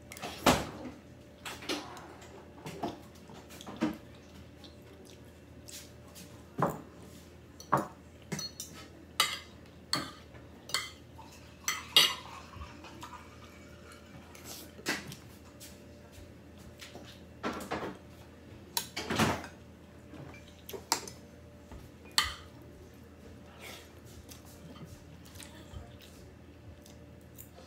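Spoon and fork clinking and scraping against a plate while eating, in irregular sharp clicks, some louder knocks among them.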